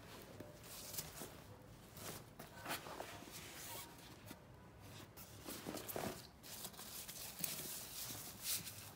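Hands handling a Prada Re-Nylon tote bag: the nylon fabric and the plastic wrap on its handles rustle and brush in short, irregular bursts, the loudest shortly before the end.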